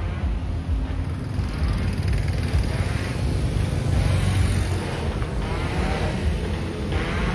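Motorcycle and car engines of a road convoy running and passing, a steady low rumble.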